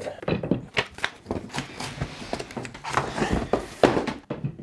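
Cardboard packaging rustling and scraping as a toolbox shop stool is unpacked, with irregular knocks and thuds as its parts are lifted out of the box.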